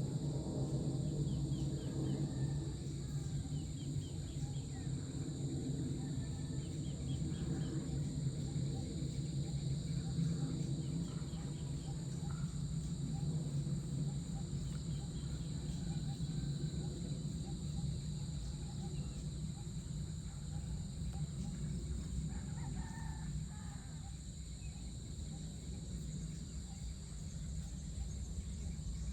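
Rural dusk ambience: roosters crowing now and then, over a steady high drone and a low steady hum.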